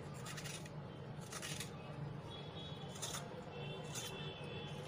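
Small blade scraping the hard ridges off a ridge gourd, about four short rasping strokes roughly a second apart, over a steady low hum.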